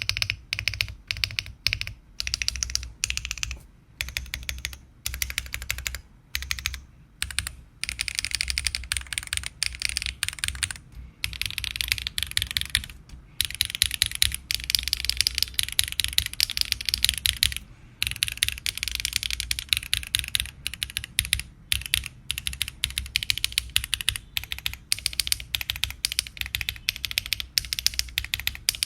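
Typing sound test on a Weikav Nut65 mechanical keyboard built with no foam, on a 1.6 mm PCB and aluminium plate: fast, continuous runs of clacky keystrokes with brief pauses every few seconds.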